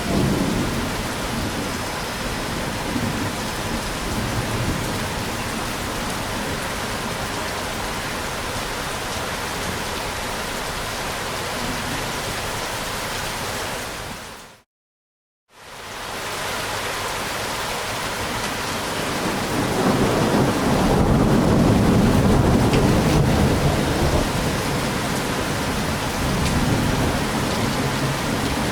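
Steady rain with rolling thunder. The sound dips to silence for about a second midway and fades back in, and a louder, longer rumble of thunder swells about two-thirds of the way through.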